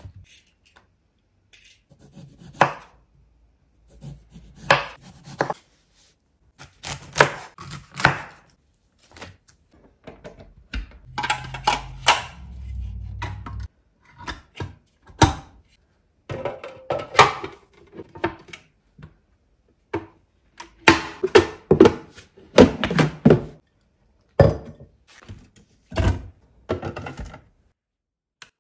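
Kitchen prep clatter: a knife knocking on a bamboo cutting board, then the plastic lid, chute and parts of a Breville juicer knocking and clicking as it is put together and loaded with celery stalks. Irregular separate knocks, a second or so apart.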